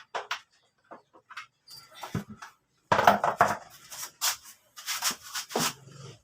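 Hand work on a vehicle's plastic covers: a string of sharp clicks, knocks and short clattering rattles, the busiest stretch about three seconds in.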